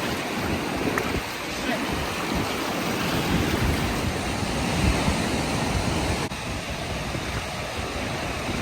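Ocean surf with wind buffeting the microphone, a steady rushing noise.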